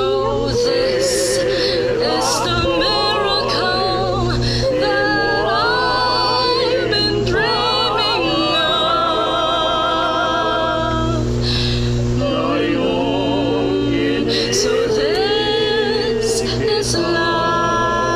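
Male and female voices singing a slow love song together, holding long notes with heavy vibrato, over a steady low hum.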